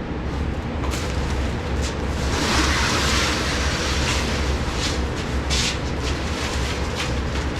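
Wind buffeting the microphone as a steady low rumble, with a stronger hissing gust from about two to four seconds in. Scattered short rustles and crackles run through it, from the tent line and fabric being handled.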